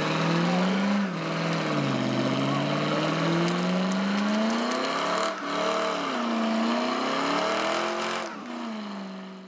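A car engine revving repeatedly: the pitch climbs, drops back and climbs again several times, held up at high revs between dips, then cuts off abruptly near the end.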